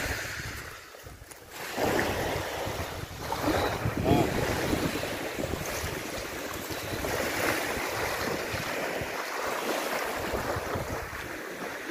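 Small waves breaking on a sandy shore, with wind rushing on the microphone; in the later part, water splashing around the legs of a man in chest waders wading out into the shallow sea.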